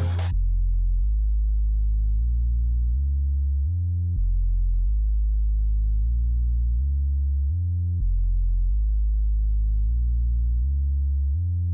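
Background electronic music stripped down to a deep synth bass line: held low notes stepping through a phrase that repeats about every four seconds.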